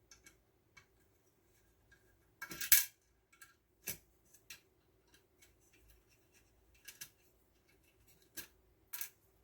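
Scattered clicks, snaps and short rustles of small electrical parts and hand tools being handled during wiring, loudest in a brief burst about two and a half seconds in, over a faint steady hum.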